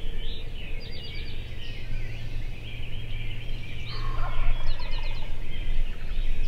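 Wild turkey gobbler gobbling, a rapid rattling call about four seconds in, while songbirds chirp and trill throughout.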